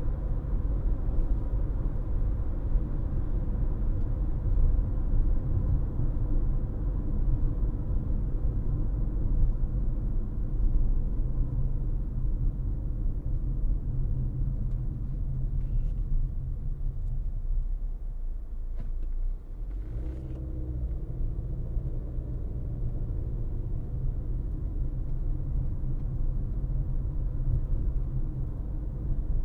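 A car driving, with a steady low rumble of road and engine noise. It eases off briefly about two-thirds of the way through, then picks up again.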